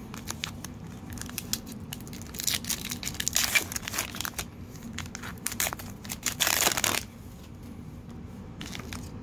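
Crinkling and tearing of a 2018 Bowman baseball card hanger pack's wrapper as it is handled and torn open, in several short crackly bursts that are loudest in the middle.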